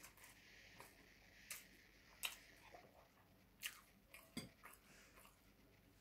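Faint eating sounds of a man eating rice and cauliflower curry by hand: soft chewing with about four sharp mouth smacks or clicks spread through the middle.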